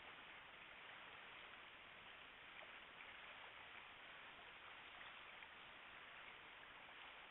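Near silence: the steady hiss of a trail camera's microphone.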